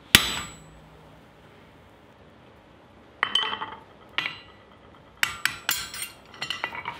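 A single hammer blow on a hot punch driven into a red-hot steel bar on the anvil, ringing briefly. Lighter ringing metal clinks follow about three and four seconds in, then a quick run of clinks near the end.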